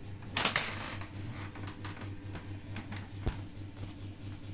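Sharp clicks and taps of handling, the loudest about half a second in and a few fainter ones after, over a low hum that pulses a few times a second.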